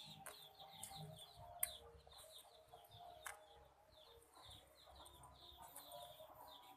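Faint background birds chirping: a quick run of short, high, falling chirps, several a second, with two light clicks, one about a second and a half in and another about three seconds in.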